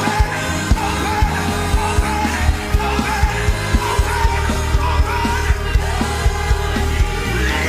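Gospel worship music: voices singing over a steady drum beat of about two hits a second and a bass line.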